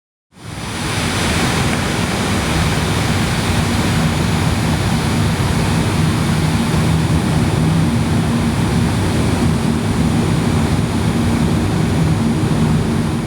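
Miniature air conditioner's fan running steadily: an even whooshing rush of air with a faint low hum, fading in at the start and out at the end.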